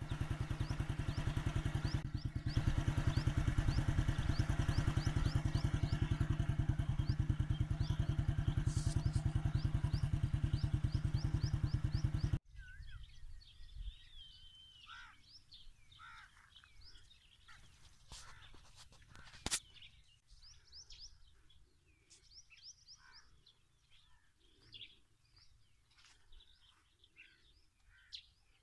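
An engine running loudly with a fast, steady beat for the first twelve seconds or so, then cut off abruptly. After that, outdoor quiet with several birds chirping and calling, and one sharp click partway through.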